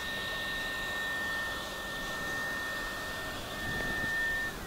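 Hot air rework gun of a Bacoeng 862D+ soldering station blowing, a steady rush of air with a thin high whine from its blower fan, while it cools toward its low temperature setting. The whine drops slightly and stops near the end.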